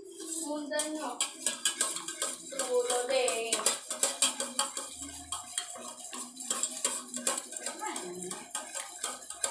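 Metal spoon stirring a drink in a stainless-steel mug, clinking quickly and repeatedly against the mug's sides.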